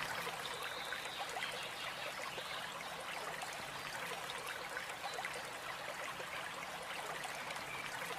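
Water splashing and trickling steadily as a person wades through shallow lake water and starts to swim, with many small splashes throughout.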